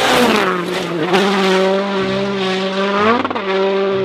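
Race car engine running at high revs, a loud steady drone whose pitch dips and climbs back a few times.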